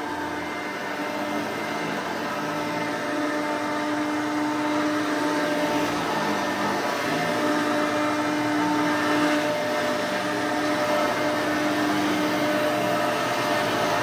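A 1993 Hoover Encore U4245 upright vacuum cleaner with a 5.5 amp motor runs steadily with a whine while it is pushed back and forth over carpet. It sounds a bit loud for a machine of this amperage, and the owner means to check the fan for chips.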